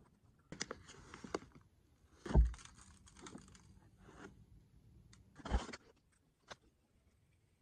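A hand rustling and crinkling a seed bag while scooping a capful of food-plot seed, with irregular crunchy handling noises. Two dull bumps stand out, the louder about two and a half seconds in and another about five and a half seconds in.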